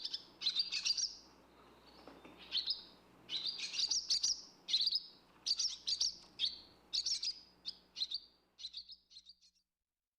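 Barn swallow chirping: a busy run of short, high chirps in quick clusters, stopping about nine and a half seconds in.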